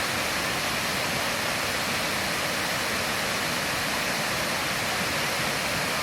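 Waterfall: water pouring down and splashing, a steady, even rush of noise.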